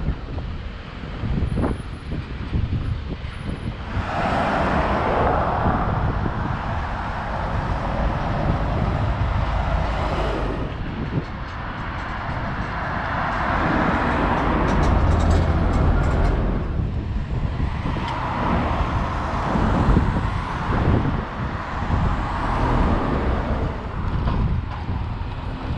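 Road traffic with double-decker buses and cars passing one after another, each engine and tyre noise swelling and fading. The heaviest low rumble comes about halfway through.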